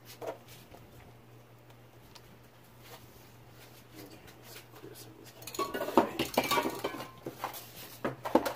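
Aerosol spray-paint cans clinking and knocking against one another as they are picked out of a tightly packed group. A few faint taps come first, then a busy run of clinks from about five seconds in.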